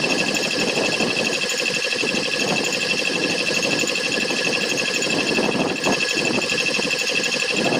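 Piston air compressor running steadily under load: the rapid, even pulsing of the pump under a steady high whine from the motor. It is building tank pressure toward about 120 PSI after its pressure switch was turned up.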